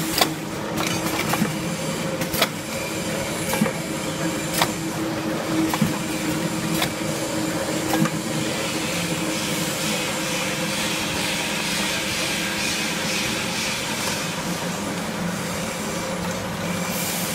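Automatic milk-powder can filling machine running with a steady hum. A sharp clack comes about once a second for the first eight seconds as the machine cycles, then settles into a steadier whirr.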